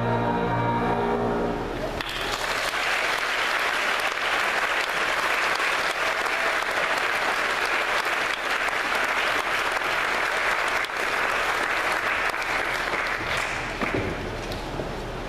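A choir ends a piece on a held chord, and about two seconds in the audience breaks into applause, which thins out near the end.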